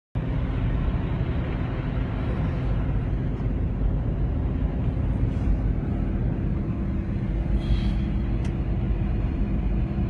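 Car driving on a wet, snowy road, heard from inside the cabin: a steady low rumble of engine and tyres.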